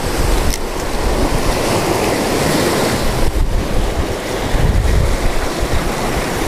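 Surf breaking and washing over lava rocks at the water's edge, with wind buffeting the microphone in a steady low rumble.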